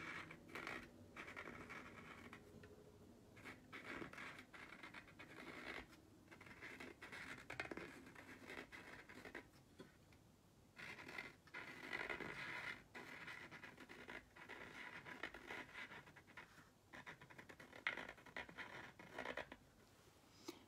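Paint pen tip scratching over the painted surface of a globe as letters are written: faint, irregular short strokes.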